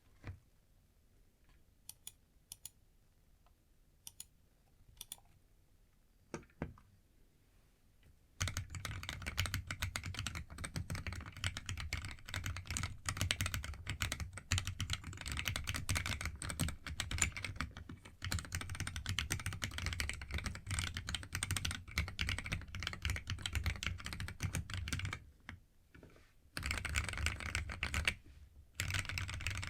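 Keystrokes on a cocot46 mechanical keyboard fitted with AKKO CS Jelly Black linear switches. It starts with a few single key presses spaced a second or more apart, then breaks into fast continuous typing about eight seconds in. The typing pauses briefly twice near the end before going on.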